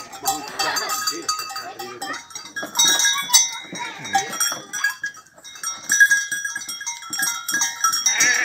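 A flock of goats and sheep jostling and feeding at a trough, with livestock bells clinking irregularly and a bleat near the end.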